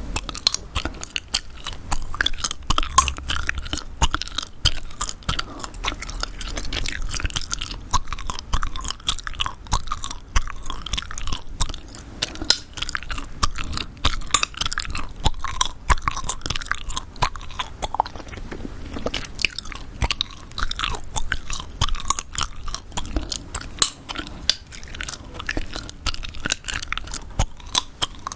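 Close-miked gum chewing: a continuous, dense run of wet clicks and smacks.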